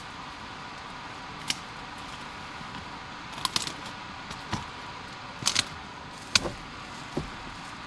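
About seven short, sharp clicks and ticks at irregular intervals, the loudest about six and a half seconds in, over a steady low hiss.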